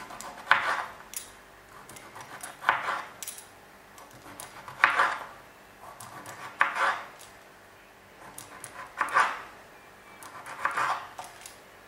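Kitchen knife slicing a cucumber on a wooden cutting board, in short runs of quick cuts about every two seconds.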